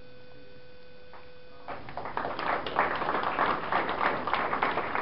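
Audience applauding, starting a little under two seconds in and keeping up as dense, many-handed clapping. Before it there is a steady electrical hum.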